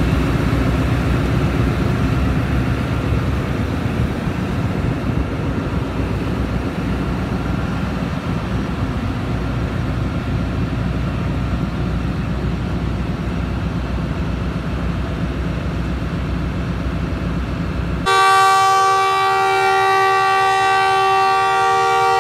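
ZCU-20 diesel-electric locomotive's engine idling with a steady low rumble close by. About eighteen seconds in, a loud multi-tone locomotive horn sounds and holds one steady chord for about four seconds.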